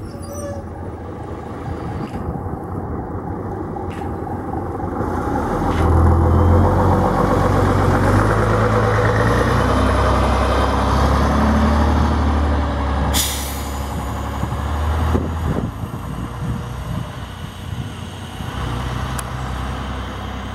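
Diesel engine of a China Motor Bus double-decker bus pulling away and passing close, its low rumble swelling to loudest for several seconds and then fading as it drives off. A short sharp hiss of air comes from the bus partway through.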